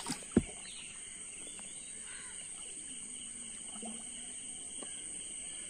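Night insects chirring steadily in several high-pitched layers, with one sharp knock about half a second in.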